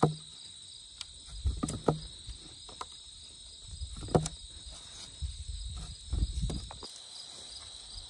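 Crickets chirring steadily, with irregular thumps and scrapes from potatoes being dug out of garden soil and handled.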